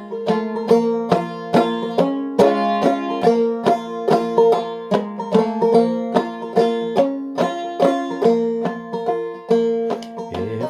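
Five-string banjo played clawhammer style in sawmill tuning with a capo at the third fret, picking a steady run of plucked notes through an instrumental break in a 3/4 tune.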